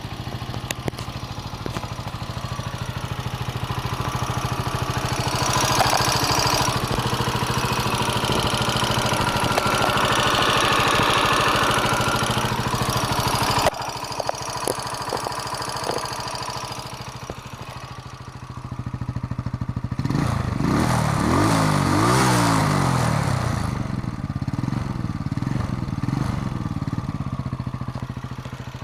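Warmed-up engine running with a loud valve knock ("хороший стук") that points to valve clearances needing adjustment. Revs are raised twice, from about 5 s to 14 s and again around 20 to 24 s, then it falls back to idle.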